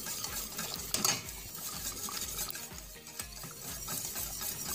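Wire whisk beating lemon curd in a stainless steel saucepan: a quick, continuous run of wires scraping and clinking against the pan, with one louder clink about a second in. The curd is being stirred constantly over the heat so the egg thickens without cooking into lumps.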